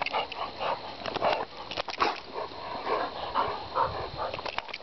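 A Great Dane and another dog wrestling in rough play: a dense run of short, irregular dog vocal sounds and scuffling clicks.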